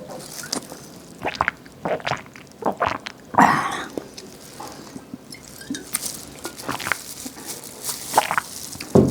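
Close-miked eating: wet, squelchy chewing with many small clicks and crackles, and one louder crunchy bite about three and a half seconds in.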